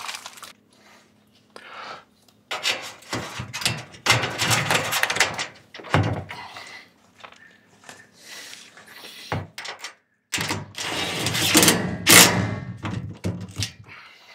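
A framed solar panel being handled against its metal mounting rail: a series of knocks, scrapes and rattles, loudest about four-fifths of the way through.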